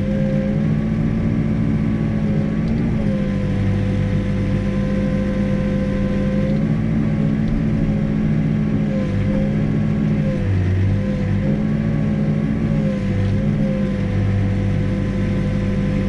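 Backhoe's diesel engine running steadily at working speed while the boom digs a footing trench, its pitch sagging briefly several times as the hydraulics take load.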